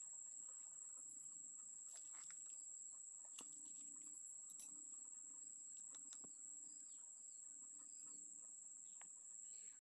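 Near silence, with a faint steady high-pitched insect drone, soft repeated chirps and a few faint clicks.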